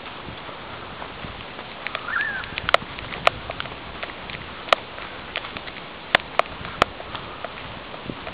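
Footsteps and rustling on a walk over rough ground, with a steady hiss and scattered sharp clicks and snaps. A short high chirp sounds about two seconds in.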